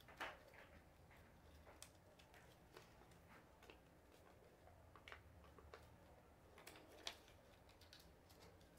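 Near silence with faint, scattered ticks and rustles of a small piece of paper being folded and creased by hand.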